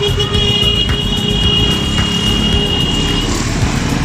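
Motorcycle engines of a slow-moving street caravan running in traffic, a steady low rumble. A steady high-pitched tone sounds over it for about the first three seconds, then stops.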